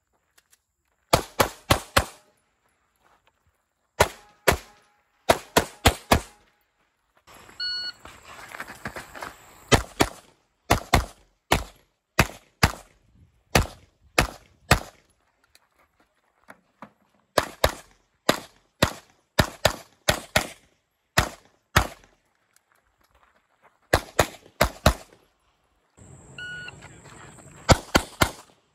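9mm Glock 48 pistol firing a USPSA stage: sharp shots, mostly in quick pairs and bursts of up to four, with pauses of a second or more between strings.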